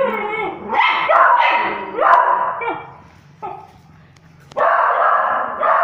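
Dog barking in short, sharp barks, about six in the first three and a half seconds, then a longer unbroken call near the end.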